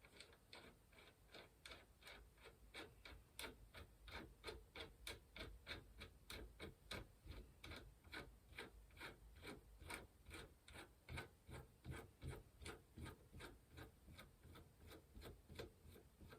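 Bicycle freewheel's pawls clicking as it is turned slowly, an even, faint ticking of about three clicks a second.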